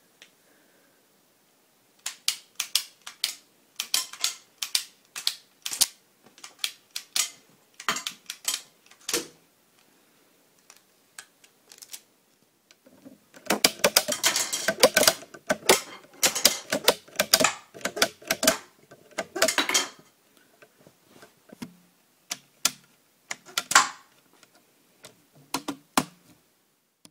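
Hard plastic clicking and clattering from a Lego rubber-band machine pistol being handled and worked. Sharp, irregular clicks come in runs, with a long dense flurry around the middle.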